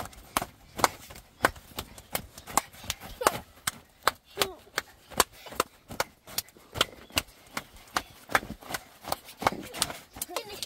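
Children clapping their hands, about two or three sharp claps a second in an uneven rhythm, with a little voice and laughter between the claps.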